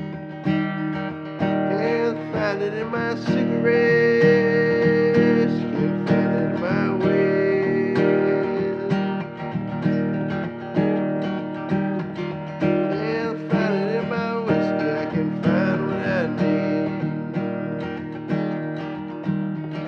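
Acoustic guitar strummed in a steady rhythm, with a voice singing over it at several points.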